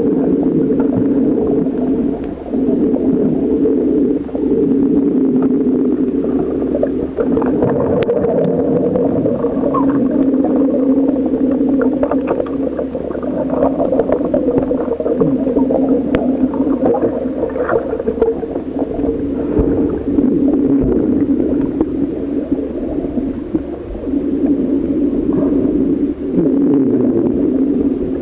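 Underwater sound picked up by a submerged camera: a steady low drone with fine crackling clicks throughout.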